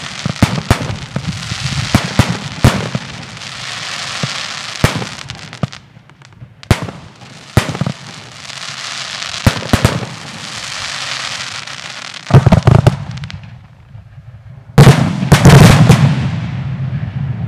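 Aerial firework shells bursting, with sharp bangs over a hissing crackle from the falling stars. A cluster of loud bangs comes about 12 seconds in, then the loudest, densest volley of bursts at about 15 seconds, which fades into crackle.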